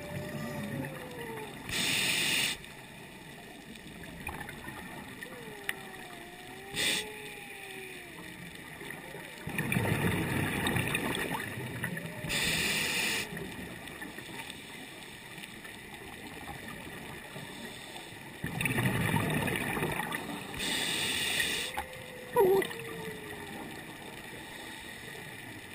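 Scuba diver breathing through a regulator underwater: a short hiss on each inhale and a longer rush of exhaled bubbles, repeating every several seconds.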